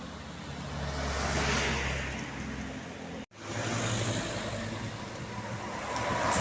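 Bus engines climbing past on a hill road. One pass swells and fades over the first three seconds, the sound cuts off abruptly, then another vehicle's engine builds up toward the end.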